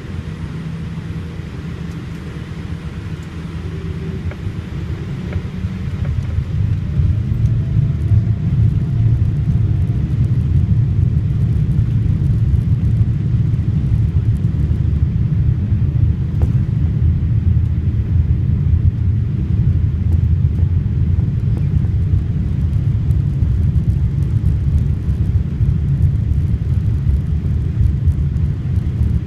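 Cabin noise of a Boeing 787-8 Dreamliner on its takeoff roll, heard inside the cabin: a deep, steady rumble of engines and runway. It grows louder over the first eight seconds or so, then holds steady.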